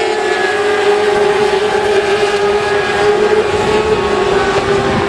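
A pack of 600cc supersport racing motorcycles running at high revs as they pass, their engine notes overlapping in a steady, high-pitched drone.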